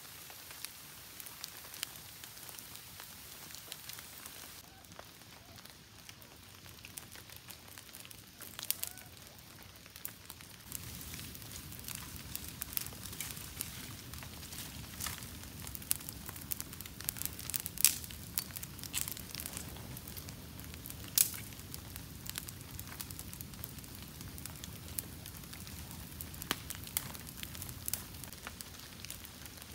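Brushwood campfire crackling, with scattered sharp pops and snaps. About ten seconds in, a steady low rush of flames joins as the fire burns high, with a few louder pops.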